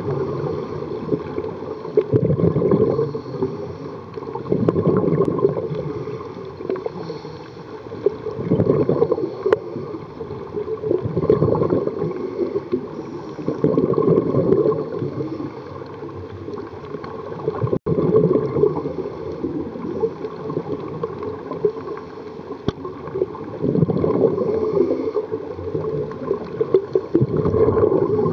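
Scuba diver's regulator breathing underwater: swells of exhaled bubbles gurgling every few seconds over a steady low wash of water noise.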